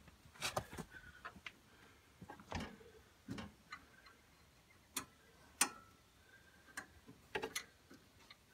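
Scattered light clicks and taps of small metal hardware being handled while a cotter pin is fitted to a mower deck's lift pin, about a dozen sharp ticks at uneven intervals.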